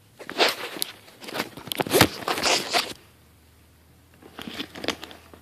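Close rustling and handling noise of a fabric backpack being moved about and rubbed against the phone's microphone, in two bursts of crackle with a short lull between them.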